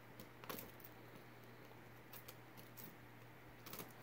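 Faint scattered clicks and taps of a small portable screwdriver on a collar's metal screw post as the lock screw is turned in, over near-silent room tone: the clearest click about half a second in, a few weaker ones later and a close pair near the end.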